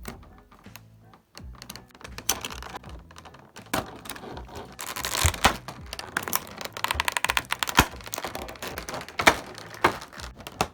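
Handling of a model kit's cardboard box and plastic packaging: an irregular run of clicks, taps and rustles, with a busier crinkling stretch about five seconds in.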